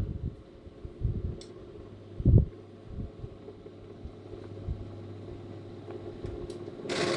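Small fan motor in a homemade refrigerator incubator humming steadily, with a few low thumps and a short hiss near the end.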